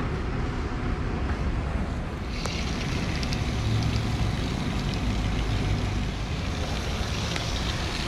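Water and coil-cleaner foam hissing out of a hose-end foam sprayer onto a metal mesh filter. The spray's hiss strengthens about two seconds in, over a steady low rumble.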